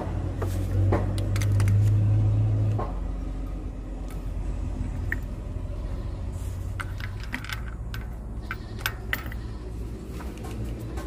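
Suzuki Multicab's small fuel-injected engine running with a steady low hum during an ignition-coil spark test, then shutting off about three seconds in. Scattered metallic clicks and clinks follow as parts are handled.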